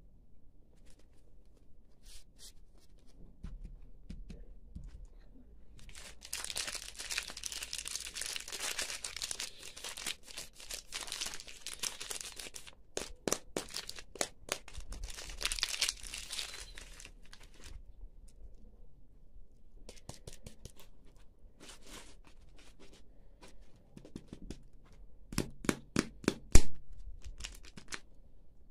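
Plastic wrapper of a Snickers bar crinkling and tearing as it is handled and opened, with a long dense stretch of crackling in the middle. A few sharp clicks come near the end.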